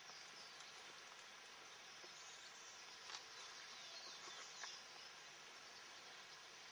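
Near silence: faint outdoor hiss with faint insect and bird sounds, and two light knocks about three and about four and a half seconds in.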